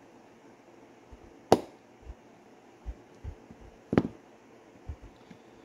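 Small pliers handled on a door lock actuator's retaining clip and set down on a workbench: two sharp clicks about two and a half seconds apart, with a few faint knocks between. The clip is not yet seated.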